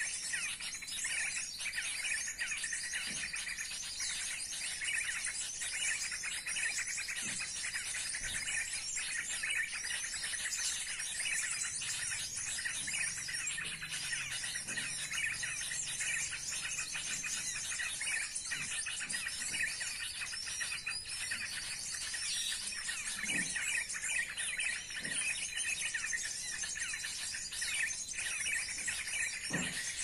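Many small birds chirping and twittering together in a dense, continuous chorus of quick high notes.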